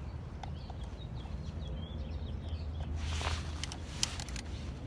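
Sharp clicks and scraping of hand tools working on the hub, starting about three seconds in, over a steady low outdoor rumble. Faint bird chirps come about a second in.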